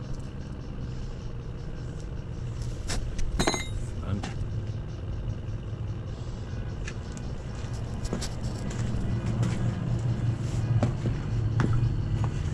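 A steady low motor drone, growing louder near the end, with scattered sharp metal clinks and knocks as engine pistons are handled.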